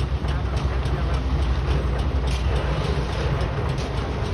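Pile-driving rig's machinery running with a steady low rumble and faint, rapid clicking.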